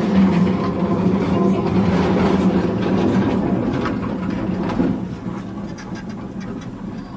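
Amsterdam tram running along its track, a steady rumble with a low hum and light rail clicks, growing fainter over the last couple of seconds.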